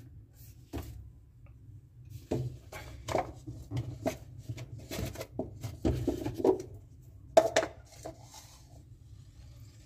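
Irregular light taps, knocks and clatter of paper cups being handled on a hotel coffee tray, with the sharpest knock about seven seconds in.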